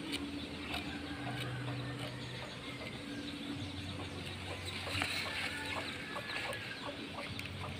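Chickens clucking now and then, with small dry clicks and rustles of garlic being peeled by hand, over a low steady hum.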